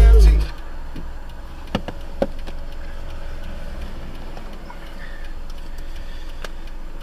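Music cuts off about half a second in, leaving the low, steady rumble of a car's engine and road noise heard from inside the cabin through a dashcam's microphone. A few faint clicks stand out, two about two seconds in and one near the end.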